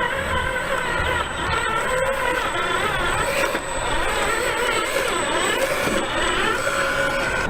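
RC4WD Desert Runner scale RC truck driving: its electric motor and gear drivetrain whine, the pitch wavering up and down with the throttle, over rough tyre and ground noise.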